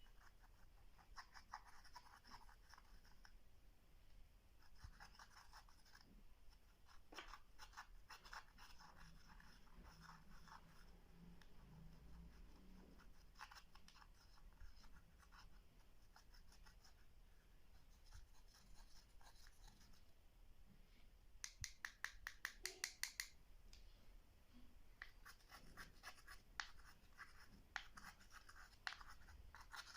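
Clear slime being worked by hand as makeup is mixed into it, making faint bursts of rapid small clicks and crackles. The loudest run of clicks comes about 22 seconds in.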